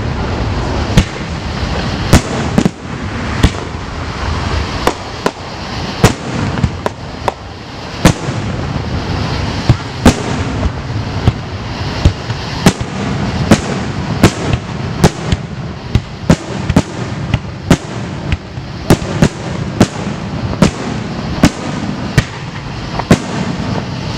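Aerial firework shells bursting in a rapid, irregular barrage of sharp bangs, about one to two a second, over a steady background of noise.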